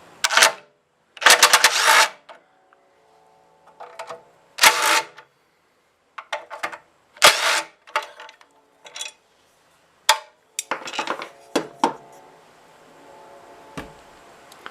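Short, irregular scraping strokes on metal, about eight of them with gaps between, and a faint metallic ringing in the pauses: rust being scrubbed off the pressure washer's metal handle.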